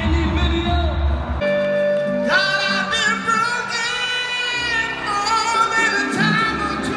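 Live concert music in an arena: a man singing with a band, recorded from the audience seats. The bass drops out after about a second and a half, leaving one held note, and the voice comes in about a second later with a wavering, sustained line; the low end of the band returns a couple of seconds after that.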